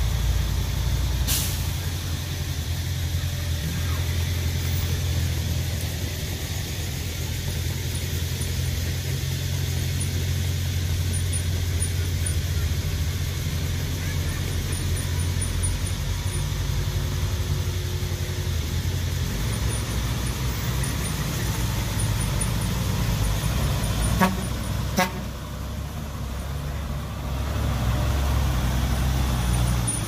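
Heavy diesel engines of dump trucks and a bulldozer running with a steady low rumble. There is a sharp click just over a second in and two short loud bangs near the end.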